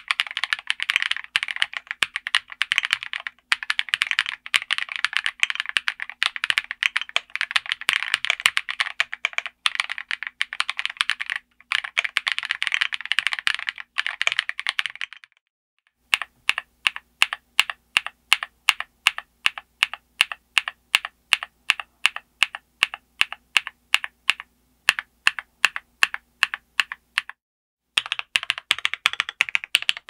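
Typing on a KiiBOOM Phantom 81 V2 mechanical keyboard with KiiBOOM Crystal linear switches, a PC plate and a gasket-mounted acrylic case. For the first half it is fast continuous typing. After a short pause come evenly spaced single key strikes, about three or four a second, then a brief stop and fast typing again near the end.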